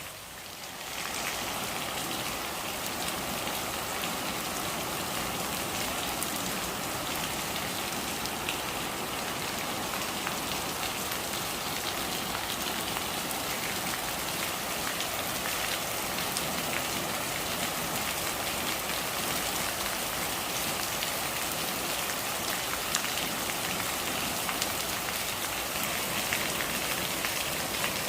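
Steady rain falling, a dense even hiss of drops with scattered individual drop ticks. It swells up to full level about a second in and then holds steady.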